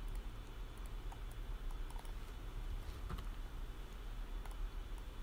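A few faint, scattered keystrokes and clicks on a computer keyboard, over a low steady hum.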